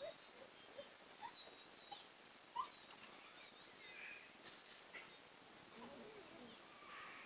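Very quiet: a plastic baby toy clicking and rattling as a dog noses it out of a toy bin and swings it, with one sharp click about a third of the way in and a few more near the middle. Faint high chirps and squeaks come and go throughout.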